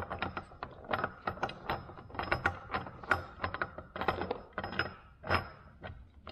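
Steel gears on the shaft of a Muncie four-speed transmission clicking and clacking as they are turned and worked by hand: an irregular string of metallic clicks, several a second.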